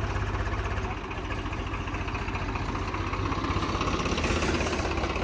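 Stuck truck's engine running steadily with an even, fast pulse, dipping slightly about a second in.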